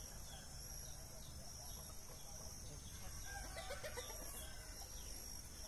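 Chickens clucking, mostly about three to four and a half seconds in, over a steady high-pitched drone of insects.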